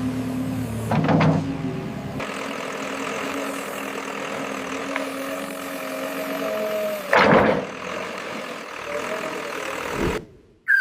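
Backhoe loader engine running steadily, with two short noisy bursts, about a second in and about seven seconds in. The deep rumble thins out about two seconds in.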